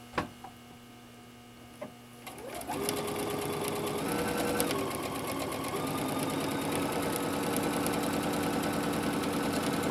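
Electric sewing machine stitching a seam: after a couple of soft clicks, it starts about two and a half seconds in and runs steadily, rising a little in speed and pitch for a moment about four seconds in.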